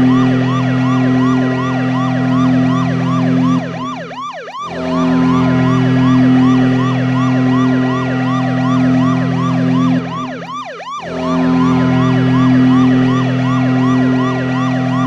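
The Avonlea Phantoms' ice hockey goal horn blowing: a steady low horn chord with a fast repeating siren whoop over it, signalling a goal. It sounds in long blasts with two short breaks, about four and ten seconds in.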